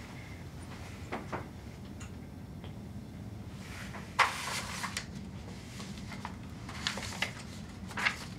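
Sheets of office paper rustling as they are gathered up and shuffled on a desk, with a few light clicks and knocks of desk items being handled. The loudest rustle comes about halfway through, over a steady low room hum.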